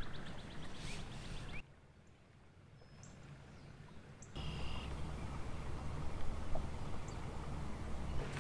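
River ambience with a few short, high bird-like chirps. The background drops away abruptly for about three seconds, then comes back with a steady low rumble.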